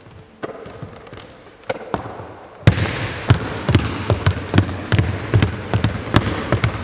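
Basketball bouncing on a hardwood court floor. There are a few scattered bounces at first, then from about three seconds in a fast, steady run of dribbles, about three a second.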